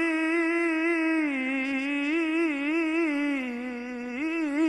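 A man's voice in melodic Quran recitation (tajwid), drawing one word out into a single long ornamented line. The pitch wavers in quick turns, sinks lower about a second in and again past the middle, then turns rapidly near the end.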